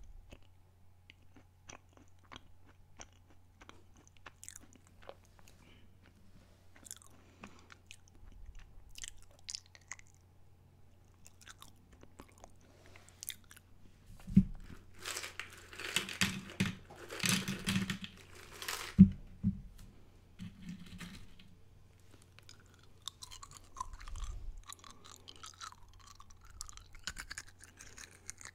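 Close-miked chewing of a crunchy snack: scattered soft mouth clicks at first, then a run of loud crunches about halfway through, easing into quieter chewing near the end.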